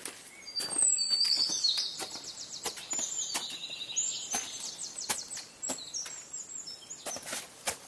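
A songbird sings a long, rapid, high-pitched trilling song for about four seconds, loudest near its start, over footsteps and trekking-pole taps crunching on icy snow.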